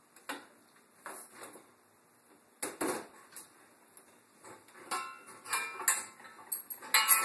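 Irregular metallic clinks and knocks of tools and fittings being handled at the top of a water heater, with a few short ringing clanks from about five seconds in, the loudest near the end.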